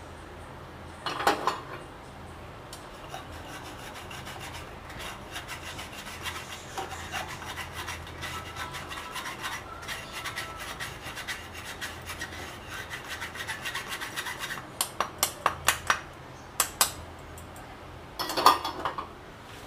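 Steel spoon scraping and rubbing against the wire mesh of a tea strainer, pushing milk-powder lumps through into a pan of milk. About fifteen seconds in comes a quick run of sharp taps.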